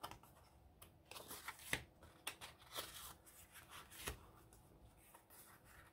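Faint rustling and light taps of paper journaling cards and tags being handled and leafed through, a handful of separate little clicks spread across a few seconds.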